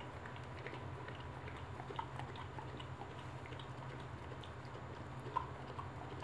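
Boxer dam licking and chewing at her newborn puppy: scattered soft, wet mouth clicks and smacks, one sharper near the end, over a steady low hum.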